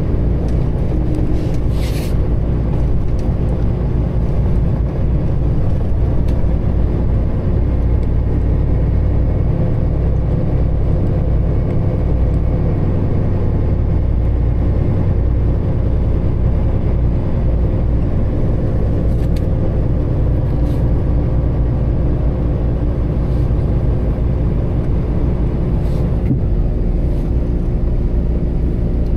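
Peterbilt semi-truck's diesel engine running with a steady low rumble, with a few faint clicks, one about two seconds in.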